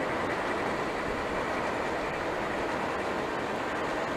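Steel wheels of a long 1/29-scale coal train of 100-ton hoppers rolling on 45 mm garden-railway track, making a steady, even rolling noise with no breaks.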